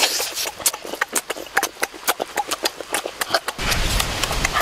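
Close-up mouth sounds of eating braised pig legs: lip smacking and chewing, a rapid irregular run of sharp wet clicks. About three and a half seconds in, a low rumble comes in under the smacking.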